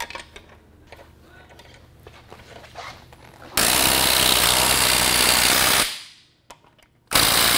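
Cordless impact wrench running the wheel's lug nuts down, in two loud bursts. The first starts about three and a half seconds in and lasts about two seconds; the second starts just before the end, after a short pause. Before that there are only faint clicks of the nuts being started by hand.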